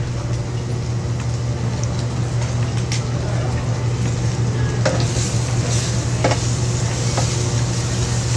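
Meat sizzling on a tabletop Korean barbecue grill over a steady low hum, with a few light clicks of metal utensils.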